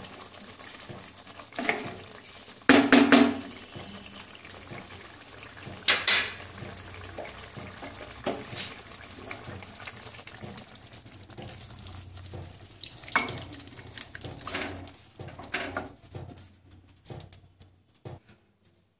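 Egg curry in a yogurt gravy sizzling and bubbling in a non-stick kadai, with a wooden spatula knocking and scraping against the pan a few times. Near the end the sizzle falls away as the pan is tipped and the curry scraped out into a serving bowl.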